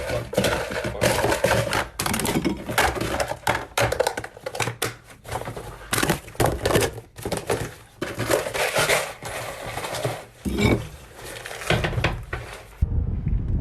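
Dense clattering of hard objects knocking together, many sharp clicks in quick irregular succession. Near the end it gives way to a low rumble.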